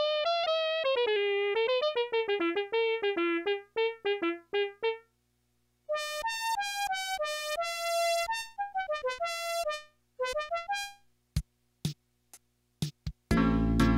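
Yamaha PS-6100 keyboard played as a melody of single notes on an electric-piano-like voice, stopping about five seconds in. After a brief pause a brighter voice plays another run of notes, then come a few short separate hits, and near the end a loud, full sound with heavy bass starts.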